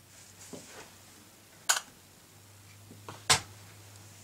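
Handling of a 35mm film camera: a soft rustle, then two sharp clicks about a second and a half apart.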